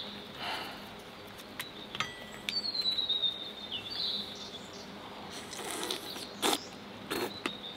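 Wild birds singing, with a long thin high whistle that slides down in pitch about two and a half seconds in. A few short, light clicks from eating and utensils are scattered through it.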